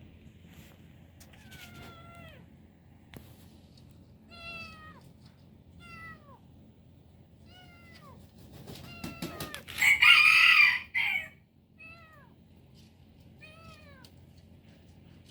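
A kitten meowing again and again, short high calls that fall in pitch. About ten seconds in, a louder harsh rooster crow follows a brief rattle.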